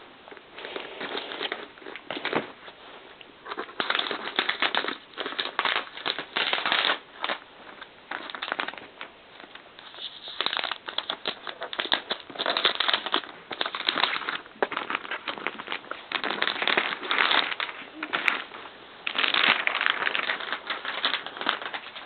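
Thin protective plastic film being peeled off a new laptop and crumpled, in irregular bouts of crinkling and crackling rustles.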